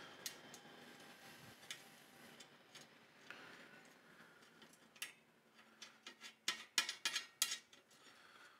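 Small metal clicks and ticks from a screwdriver turning screws into a metal amplifier chassis panel, with a quick run of louder, sharper clicks about six and a half seconds in.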